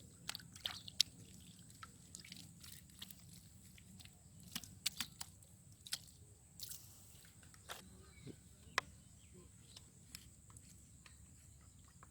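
Water dripping and splashing in small, irregular splashes, with scattered sharp clicks and ticks from wet handling of the catch or trap.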